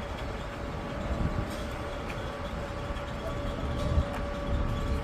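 Engine-driven concreting machinery running steadily: a low rumble with a constant high whine.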